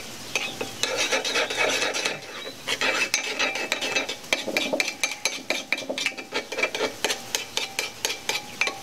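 A spoon stirring thick homemade cocktail sauce in a small ceramic bowl, scraping and clinking against the sides in quick repeated strokes, about three or four a second in the second half.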